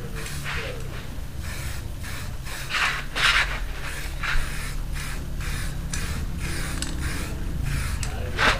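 Aerosol spray paint can hissing in short repeated bursts as paint is sprayed onto a motorcycle exhaust pipe, with a longer, louder burst about three seconds in and another near the end.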